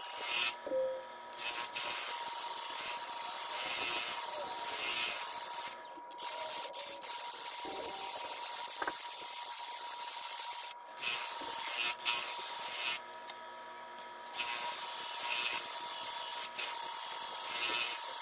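A cordless drill spins a sanding pad against an ash bowl turning on the lathe: a steady hiss of abrasive on wood over a thin steady motor whine. The hiss breaks off briefly about four times.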